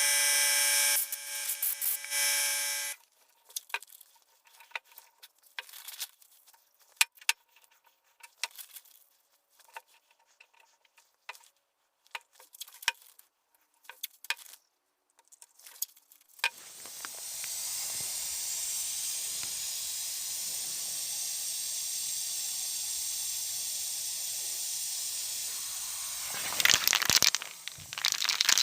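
Workshop tool sounds: a motor running with a steady whine that stops about three seconds in, then scattered clicks and taps of small parts being handled, then a steady hiss for about ten seconds, with louder rough noise near the end.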